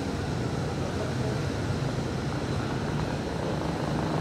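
Steady low mechanical drone that does not change.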